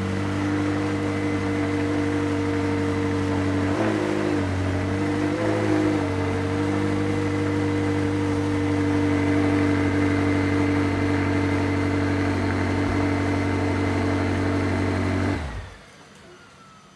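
Engine running steadily, with two brief rises in pitch, then switched off near the end, its sound stopping suddenly with a faint falling whine after.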